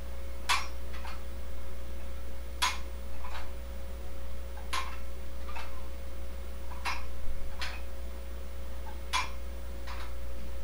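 Dumbbell clinking with each rep of a one-arm biceps curl: a sharp click followed by a fainter one, the pair repeating about every two seconds, over a steady low hum.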